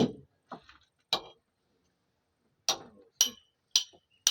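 Sharp metallic strikes, like hammer blows on metal: three scattered ones in the first second or so, then after a pause a steady run of about two strikes a second.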